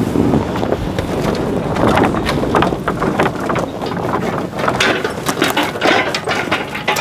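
Pickup truck moving slowly past on a snowy track, its engine running, with wind noise on the microphone and many sharp crunches and cracks from about two seconds in.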